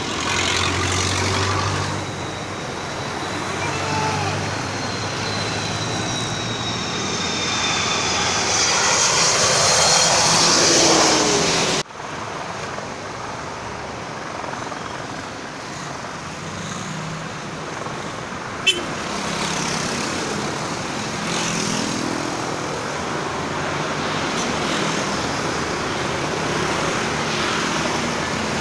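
Road traffic passing on a busy road: cars and trucks going by, with an abrupt break about 12 seconds in where the sound jumps, and a single sharp click near the end.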